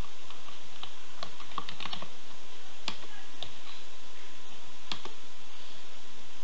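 Computer keyboard typing: a few separate keystrokes over the first three and a half seconds, then one more click about five seconds in.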